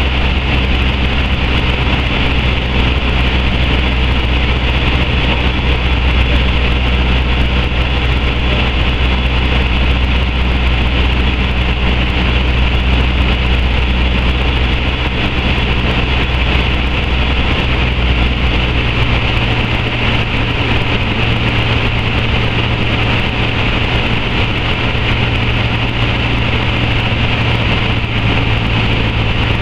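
Light single-engine propeller aircraft's engine and propeller running steadily in flight, heard from inside the cockpit as a loud, even drone. About two-thirds of the way through, the deepest part of the drone fades out and a slightly higher note comes up.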